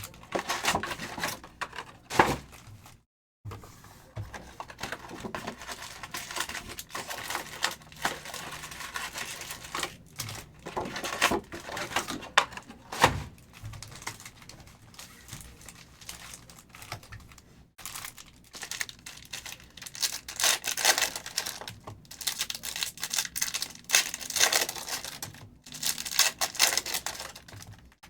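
Trading-card packs being torn open and their foil wrappers crinkled, with cards clicking and flicking as they are handled, in irregular bursts.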